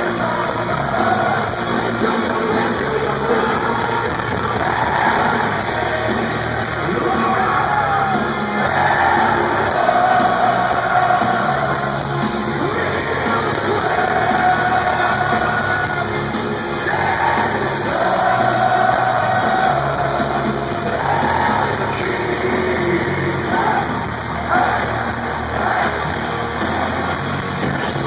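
Live heavy metal band playing loudly, with long held sung notes over the guitars and drums and a crowd yelling along.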